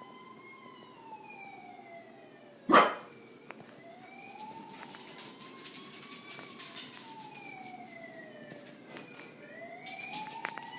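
Emergency-vehicle siren wailing, rising and falling slowly about every four seconds without a break. A corgi gives one short, loud bark about three seconds in, with faint short yips here and there.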